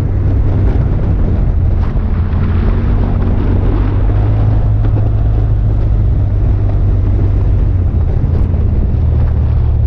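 Side-by-side UTV engine running at a steady trail speed, with tyre and gravel road noise.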